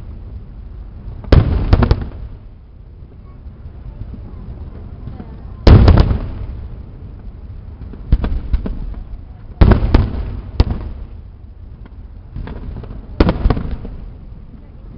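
Aerial fireworks shells bursting in a series of loud bangs every second or two, some in quick pairs, each fading out in a short rumble.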